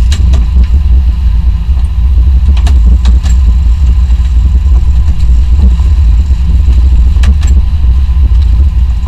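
A sport-fishing boat's engines run with a steady low rumble, mixed with wind and water noise. A few sharp knocks sound now and then.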